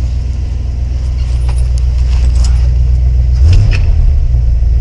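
1979 Ford F-150 pickup engine idling steadily, then blipped once about three and a half seconds in, its revs briefly rising. This is a throttle-response check just after a vacuum leak was fixed.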